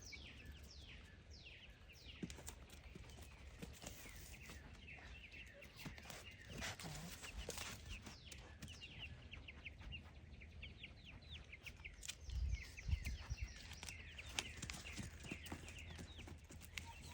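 Baby chicks peeping over and over in quick, short, falling chirps. A few dull low thuds come about twelve to thirteen seconds in.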